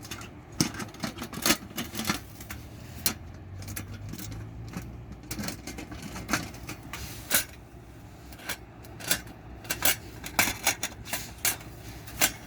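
Irregular metallic clicks and clinks of a small portable steel camp grill being unfolded and put together, dozens of sharp taps with short gaps between them.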